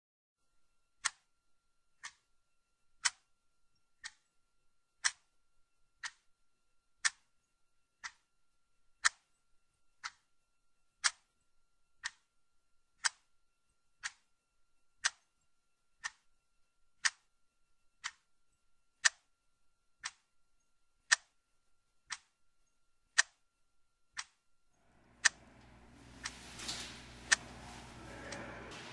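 Clock ticking once a second, strokes alternating louder and softer like a tick-tock, about two dozen ticks over a faint steady whine. Near the end the ticking stops and a steady room hum with a few clicks takes over.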